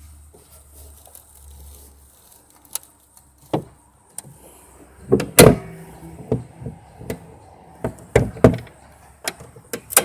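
Nissan 300ZX hood being lowered and pushed down, a series of metal thumps and clunks, the loudest about five and a half seconds in; the hood is not closing right.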